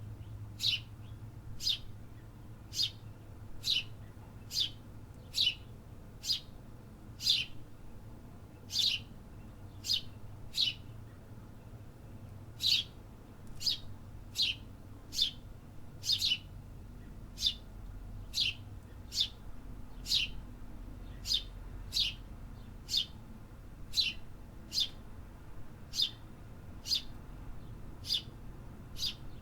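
A bird repeating a short, sharp chirp a little more than once a second, each chirp a quick downward sweep, over a faint low city hum.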